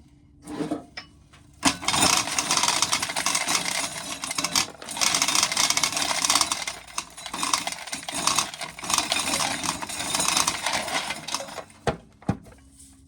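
Dried field corn being shelled: a dense rattle of hard kernels coming off the cob and clattering into a container. It starts about two seconds in, and stops shortly before the end.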